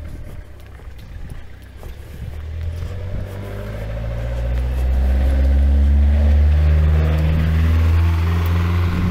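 A van drives up from behind and passes close by. Its engine grows steadily louder over several seconds and stays loud near the end, and the engine note shifts in pitch as it goes.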